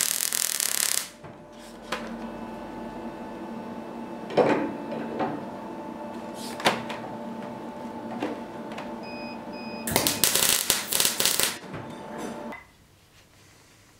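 Electric arc welding: the arc crackles loudly for about a second, then again for about a second and a half around ten seconds in. Between the two welds a steady hum runs with a couple of sharp knocks. The hum stops about two seconds before the end.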